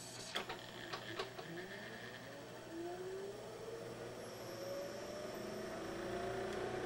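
Pioneer CLD-V2600 laserdisc player loading a 12-inch disc: a few clicks as the tray closes and clamps the disc, then a faint whine that rises steadily in pitch as the spindle motor spins the disc up to speed.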